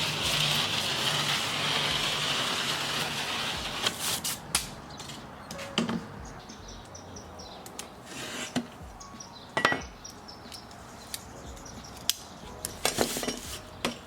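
Hand work with tools and building material: a steady hissing noise for about the first four seconds, then scattered sharp knocks and metallic clinks, one with a short ring near the middle.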